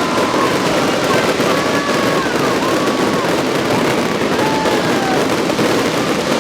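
Fireworks crackling and popping in a dense, steady barrage, with no single bang standing out. Faint gliding whistles run through it.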